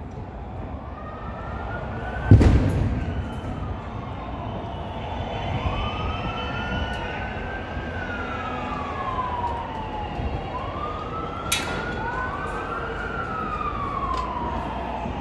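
Emergency-vehicle sirens wailing, slow rising and falling glides with at least two sirens overlapping. A single loud bang cuts through about two seconds in, and a short sharp crack comes later.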